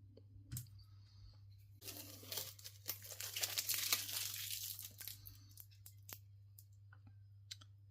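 Rustling, scraping handling noise from about two to five seconds in, then a few small clicks, over a steady low hum.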